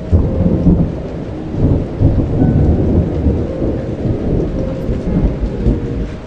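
Thunder rumbling over steady rain, the rumble swelling and easing several times.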